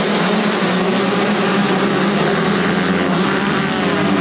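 Motocross bike engines running hard during a race, a loud steady blare with the pitch wavering as riders work the throttle.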